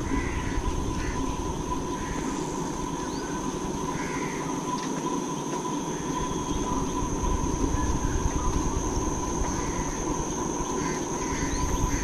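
Insects droning steadily in the vegetation, two held tones, one high and one lower, over a low rumble, with a few faint bird chirps.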